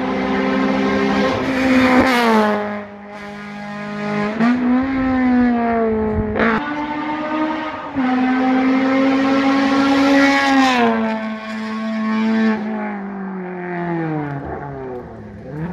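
Rally car engine at full throttle coming up the road and passing. Its pitch climbs and then drops back several times as it changes gear.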